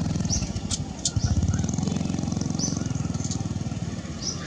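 A steady low engine drone runs under short, high chirps that come about once a second, with a few sharp clicks.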